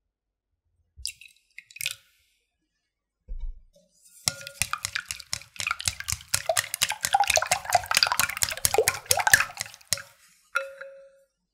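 Wooden chopsticks beating eggs in a glass bowl: rapid clicking against the glass and sloshing egg for about six seconds, after a few small sounds as a little water is poured in, and a brief tap with a short ring near the end.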